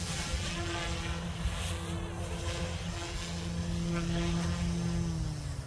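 Goosky S2 electric RC helicopter's rotor and motors whining steadily as it comes down and lands. The pitch falls near the end as the rotor spools down.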